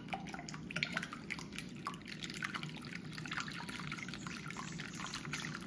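Wire whisk beating raw eggs in a glass bowl: wet sloshing with a continuous irregular run of light clicks as the metal wires strike the glass.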